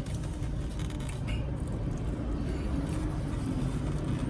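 Steady low rumble of an idling car heard from inside, with a faint hum and a few soft clicks.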